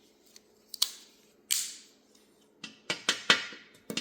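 Metal multi-tools being handled and set down side by side, giving a string of sharp clicks and knocks. One knock about a second and a half in has a short scraping tail, and several come in quick succession near the end.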